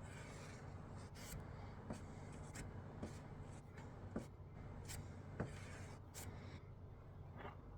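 Applicator scraping and smoothing IsoPon P38 polyester body filler across a car panel in short, irregular strokes, with the filler already starting to harden. A faint steady low hum runs underneath.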